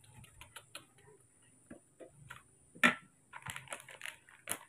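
Plastic packaging being handled: small clicks as a yellow plastic food container is opened, one sharp loud snap a little under three seconds in, then the crinkling of a plastic sachet being taken out and handled.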